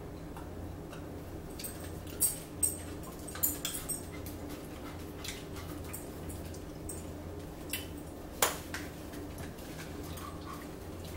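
Eating sounds close to the microphone: a handful of short, sharp clicks and mouth smacks, several about two to four seconds in and a louder one near eight and a half seconds. A steady low hum lies underneath.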